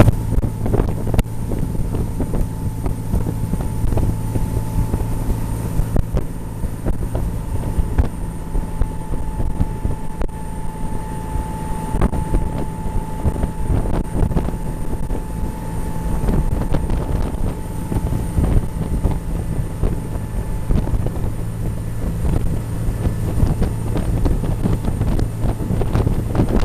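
A high-speed passenger boat's engines run at a steady cruising drone, heard from on board, with rushing water and wind buffeting the microphone.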